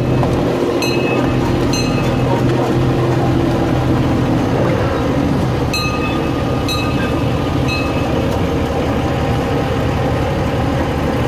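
Engine of a John Deere tow vehicle running steadily as it pulls a farm train ride. A few brief high clinks sound about one and two seconds in, and again around six to eight seconds.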